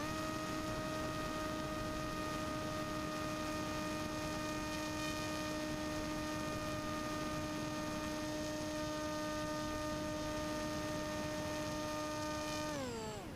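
Motor and propeller of a 47-inch FPV flying wing humming at one steady pitch under constant throttle, gliding up in pitch as it spools up at the start and sliding down as the throttle is cut about half a second before the end. Wind rushes over the onboard microphone underneath.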